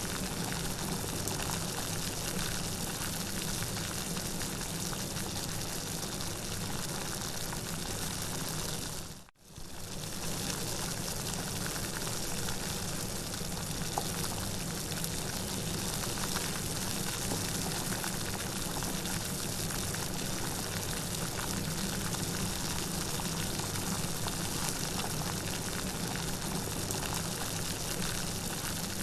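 Steady rain, an even hiss of falling water without a break in its texture. About nine seconds in it fades out almost completely for a moment and comes straight back.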